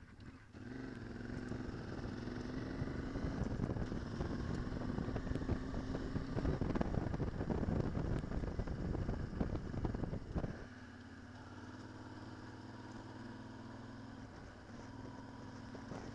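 Motorcycle engine pulling away and running along a dirt track, its note climbing slowly, with rough noise from the ride over the uneven surface. About ten seconds in the sound drops suddenly to a quieter, steady engine note.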